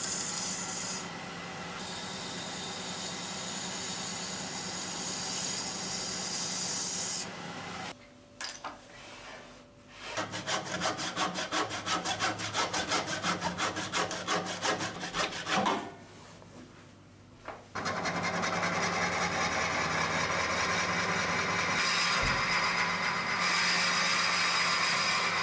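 Woodturning work on a lathe, in separate clips: a tool scraping a spinning resin-and-wood blank with a steady rasping noise, broken in the middle by a stretch of fast, even rubbing strokes, and then steady scraping again.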